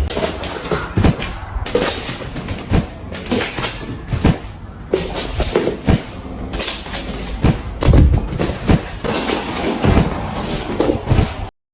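A run of irregular knocks and thumps, some loud, over a noisy background, cutting off suddenly near the end.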